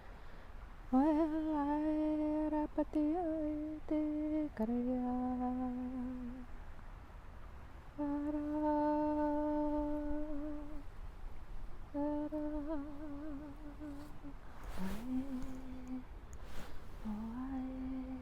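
A woman humming long, steady held notes a few seconds each, with short breaks between them. The pitch steps down partway through the first phrase, and two shorter notes that scoop upward come near the end.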